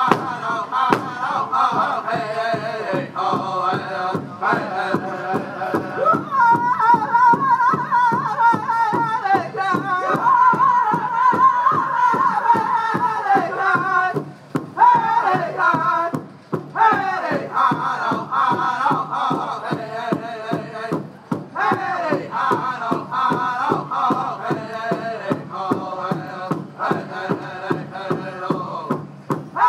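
Powwow drum group singing a song in high voices over a steady beat on the big drum. The singing breaks off briefly about halfway through while the drumbeat carries on.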